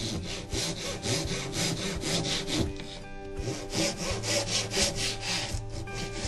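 Hand saw cutting a small piece of wood in a jig with quick back-and-forth strokes, about three a second. There are two runs of strokes with a short pause in the middle.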